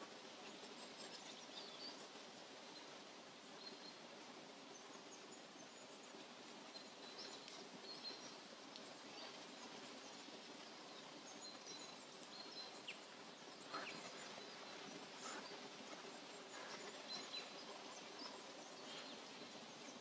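Faint forest ambience: a steady background hiss with scattered short, high bird chirps and calls, more frequent in the second half.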